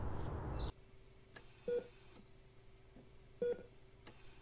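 Outdoor woodland ambience with bird calls cuts off abruptly under a second in, giving way to a hospital patient monitor beeping steadily, one short beep about every second and three quarters, over a faint steady hum.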